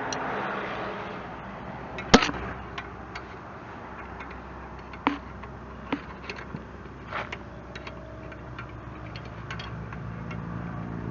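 Scattered metallic clicks and knocks of hand tools and wrenches on the backhoe's joystick control mounting, one sharp knock about two seconds in the loudest, over a steady low background hum.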